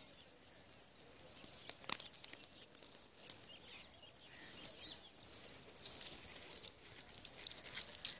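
Dry wheat ears and stalks rustling and brushing close to the microphone: faint, high crackling that gets busier over the second half.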